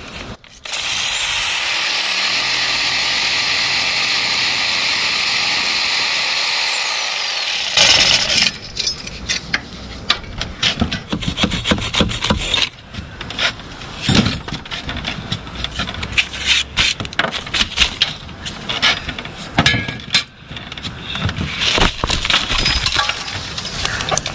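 A handheld power tool cutting into brickwork for about seven seconds, its high whine rising as it spins up and falling as it runs down. Then many irregular knocks and scrapes as brick and mortar are worked out by hand.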